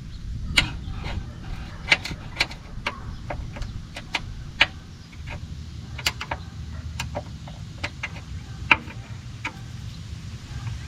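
Irregular sharp metallic clicks and taps, about twenty of them at uneven spacing, from small metal parts and tools being handled, over a steady low rumble.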